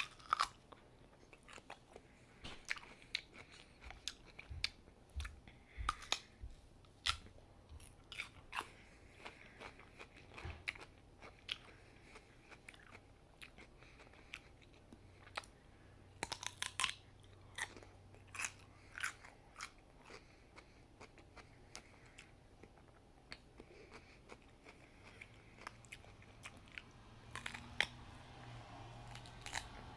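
A person biting into and chewing a whole raw cucumber: irregular sharp crunches throughout, with a dense cluster about halfway through.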